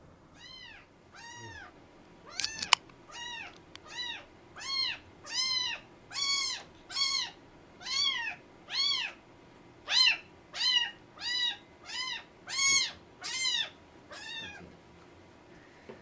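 A one-month-old kitten meowing over and over, about eighteen short high-pitched mews, each rising and falling in pitch, in a steady string. A single sharp click sounds a few seconds in.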